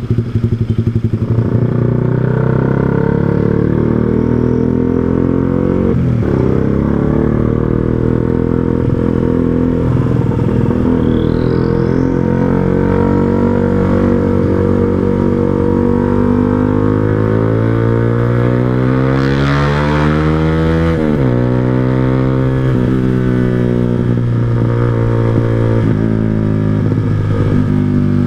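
Yamaha R15 V2's single-cylinder engine running through an aftermarket Proliner TR1R Short silencer and 3Tech Racing header while riding. There is a brief dip in the engine note about six seconds in. Later the revs climb steadily for several seconds, then fall sharply about two-thirds of the way through.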